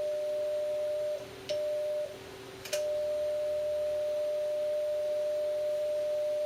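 Radio transceiver's CW sidetone: a steady pure tone sounding while the transmitter is keyed down to drive the linear amplifier during tune-up. It breaks off briefly about a second in and again around two seconds in, with a click each time it comes back, then holds steady.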